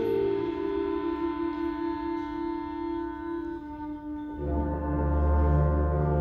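Concert band playing: held brass and wind chords thin out to a softer sustained note, then about four seconds in the full band comes in louder with strong low bass notes.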